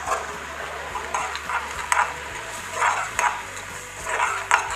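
Metal spoon stirring oats cooking in water in a steel pan, with short scrapes against the pan about once a second over a steady hiss of the simmering pot.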